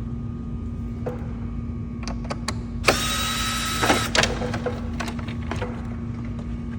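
Torx T20 screws being taken out of a motorhome side-mirror housing: light clicks and taps of the tool, with a small motor whirring for about a second near the middle. A steady low hum runs underneath.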